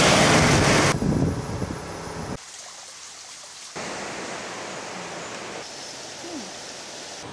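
Outdoor ambient noise: a steady rushing hiss, loud for about the first second, then dropping in steps at a few sudden changes.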